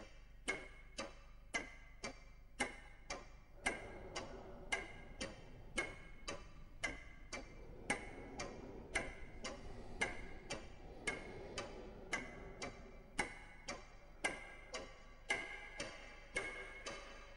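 Wall clock ticking, sharp and evenly paced at about two ticks a second, with faint music underneath.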